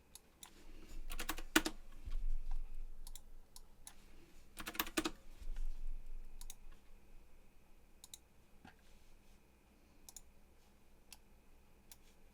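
Computer keyboard typing in two short bursts, about a second in and again near five seconds, with scattered single mouse clicks in between. This is typical of entering names for new materials in 3D software.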